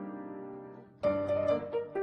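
Background music: a held chord dies away, then new struck notes come in about a second in.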